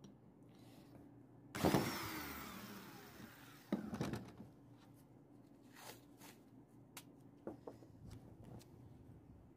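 Cordless drill driving a long screw into a pine block: the motor starts suddenly and its whine falls away over about two seconds, then a second brief burst of drilling about four seconds in. Light clicks and knocks of handling follow.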